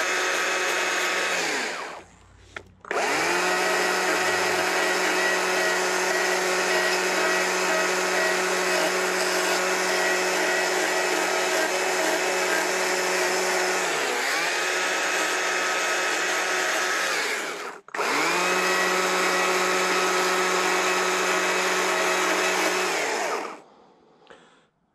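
Stihl two-stroke chainsaw running at high revs while the bar shapes a small wooden mushroom. The sound cuts out briefly twice, the revs dip once and climb back, and it stops near the end.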